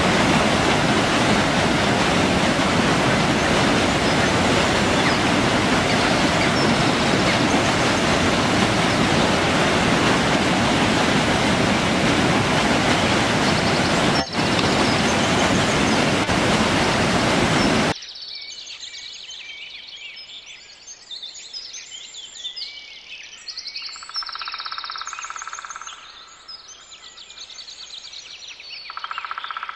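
Loud, steady rushing of white water tumbling down a rocky stream. About eighteen seconds in it cuts abruptly to quieter forest ambience: many small birds chirping, with two longer steady notes near the end.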